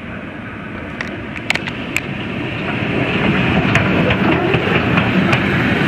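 Narrow-gauge steam locomotive and its train rolling past at close range, a rumble of wheels on rail that grows steadily louder as the engine draws level, with scattered sharp clicks from the wheels.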